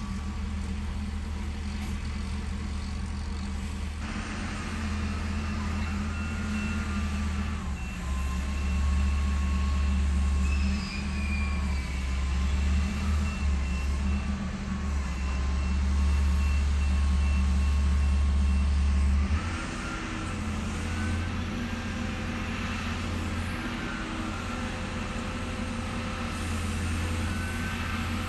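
Vehicle engine running with a steady low rumble. The rumble grows louder for about ten seconds in the middle, and a quick repeating high beep sounds over part of that stretch.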